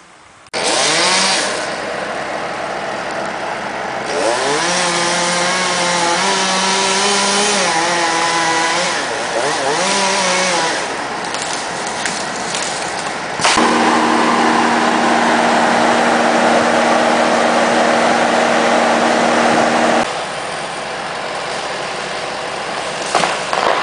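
Gas engines of tree-removal equipment running and revving: the pitch steps up and down in the first half, then about 13 seconds in it jumps to a steady high-revving run with heavy noise, and changes abruptly again about 20 seconds in.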